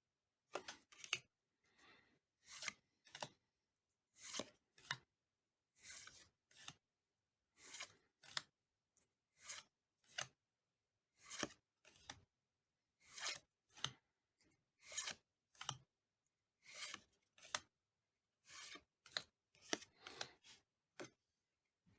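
Pokémon trading cards being slid one at a time off a stack in the hand: soft paper-on-paper swishes, usually two quick strokes per card, repeating about every two seconds.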